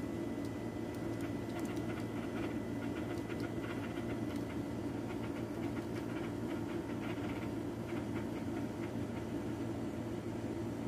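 Light scratchy patter and small splashes of a cockatiel bathing in its water dish, fluttering its wings, most of it in the middle of the stretch, over a steady low mechanical hum.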